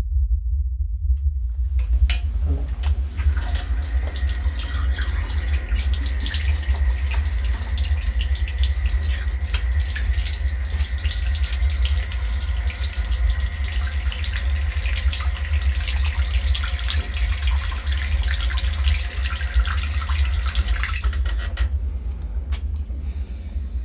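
Bathroom tap running into a sink, turned on about two seconds in and shut off near the end, over a steady low rumble.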